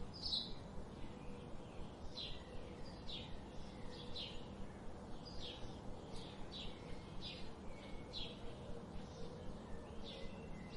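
Forest bird chorus: short, high chirps repeated about once or twice a second over a steady low background hum.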